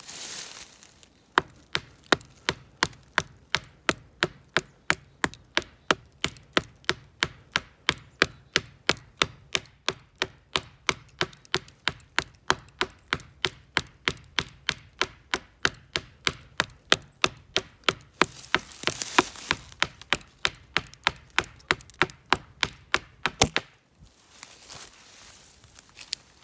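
Hafted stone axe chopping into the trunk of a small black walnut sapling: a long, even run of sharp wooden blows, about three a second, that stops a few seconds before the end.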